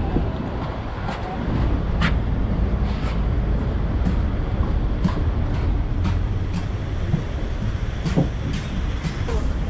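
Footsteps on a wooden plank walkway, sharp knocks about once a second, over a steady low rumble.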